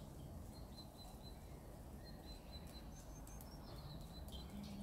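Small birds chirping faintly in runs of short, high, repeated notes over a low steady outdoor rumble.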